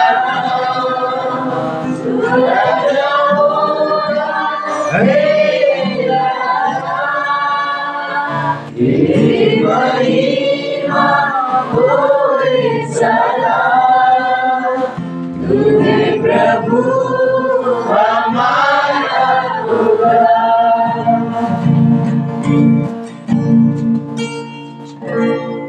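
A church congregation of men and women singing a worship song together.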